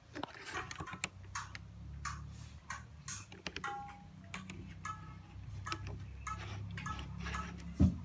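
Pioneer CDJ-400 jog wheel being turned by hand, giving irregular clicks and ticks over a low steady hum, with one loud knock near the end.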